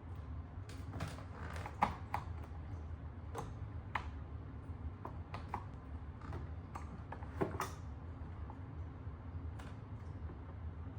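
Blind mounting hardware being handled and fitted onto the headrail: scattered light clicks and taps, with two sharper clicks about two seconds in and about seven and a half seconds in, over a faint low hum.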